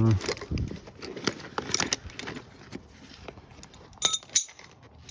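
Metal hand tools clinking and rattling as they are rummaged through in a tool bag, with two sharper clinks about four seconds in.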